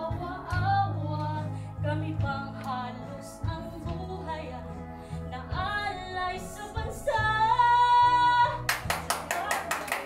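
A woman singing a song over musical accompaniment, ending on one long held note about seven seconds in. Audience applause breaks out just after it, near the end.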